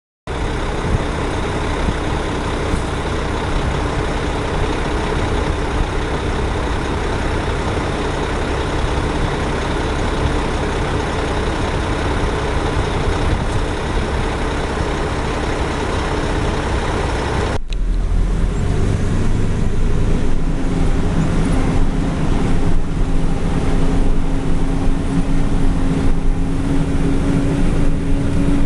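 Heavy diesel machinery running steadily in a cornfield, a dense, even noise. About 18 seconds in it changes abruptly to a deeper rumble with a steady hum, growing slightly louder toward the end.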